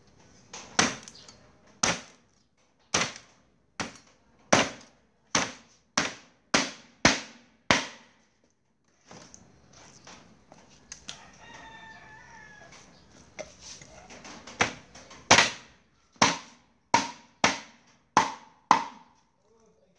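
A meat cleaver chopping through duck meat and bone on a wooden chopping block: a run of about ten sharp chops, a pause of several seconds, then another run of about seven chops.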